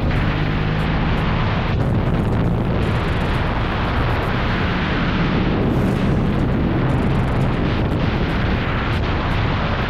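Sport motorcycle riding at speed on an open road: steady engine drone mixed with heavy wind rush on the onboard camera's microphone.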